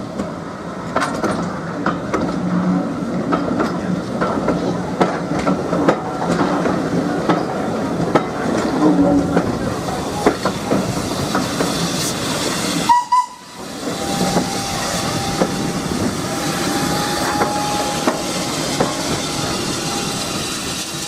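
Train rolling along the track, its wheels clicking over the rail joints with a steady rumble. The sound drops out abruptly about two-thirds of the way through and resumes at once.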